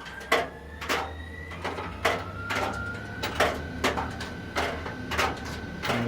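Fisher & Paykel clothes dryer starting up and running with a newly replaced drum bearing: a low motor hum and a whine that rises in pitch, then holds steady, with regular light knocks a little under twice a second as the drum turns. It runs quietly, without the earlier bearing squeal.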